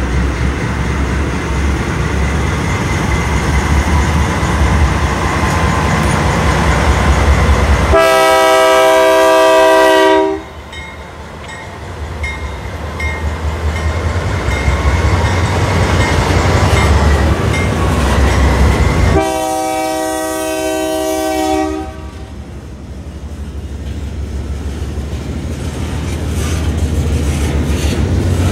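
Freight train passing close by, led by a BNSF GE diesel locomotive with a second diesel behind: engines rumbling, the horn sounding two long chord blasts of about two and a half seconds each, a third of the way in and again past the middle. After the locomotives, the boxcars and tank cars clatter over the rail joints.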